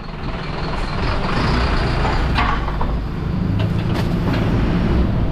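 Garbage compactor truck's diesel engine running, a steady low rumble that grows louder about a second in, with a sharp click about four seconds in.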